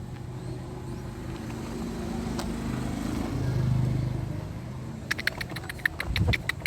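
A motor vehicle's engine passing, a low hum that swells to its loudest about four seconds in and then fades. From about five seconds in, hungry chicks give rapid high-pitched begging cheeps.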